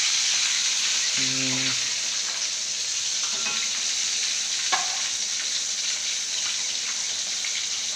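Gourami fish frying in a wok of oil: a steady high sizzle, with a metal spatula stirring in the pan and one sharp tap a little past halfway.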